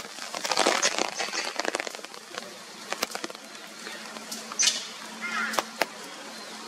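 Rain falling steadily, with many sharp drops hitting close by that are densest in the first two seconds. A brief bird call comes about five seconds in.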